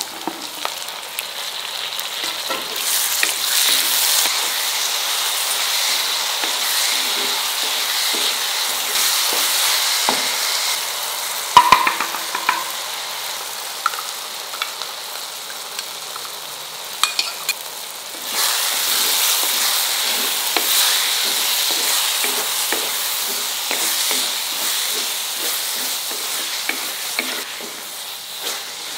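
Shallots and tomatoes sizzling in hot oil in a heavy pot while a spatula stirs and scrapes them, the sizzling swelling louder for long stretches. A sharp ringing clink partway through.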